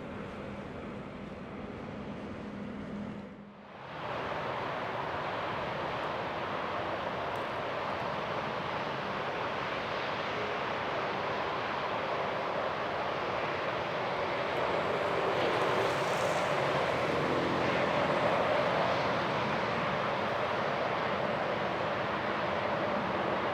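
Jet airliner engines, a steady rush of noise that grows louder over the middle of the stretch, with a faint hum of tones at its loudest. The sound drops out briefly about three and a half seconds in, where one aircraft's sound cuts to the next.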